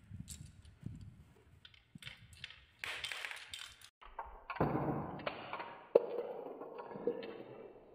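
Glass marbles clicking and tapping together, then many glass marbles rolling down a wooden marble-run slope and round a wooden spiral track: a steady rolling rumble from about four and a half seconds in, dotted with sharp clicks as marbles strike the wood and each other, the loudest click about six seconds in.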